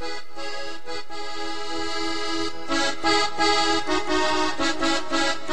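Cumbia music led by an accordion playing held chords and melody, with percussion hits coming in strongly about two and a half seconds in.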